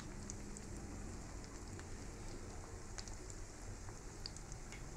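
Batter- and breadcrumb-coated green chillies sizzling as they fry in hot oil in a pan, a steady hiss with scattered small pops and crackles.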